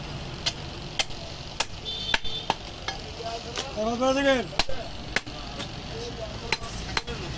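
Butcher's knife chopping goat meat on a wooden log block: sharp knocks, about a dozen, irregularly spaced, roughly two a second. About four seconds in, a brief voice-like call rises and falls in pitch.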